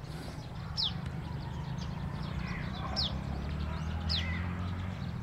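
Birds calling: one bird gives three short, falling whistled notes, about a second in, at three seconds and just after four seconds. Fainter chirps of other birds and a steady low rumble sit beneath them.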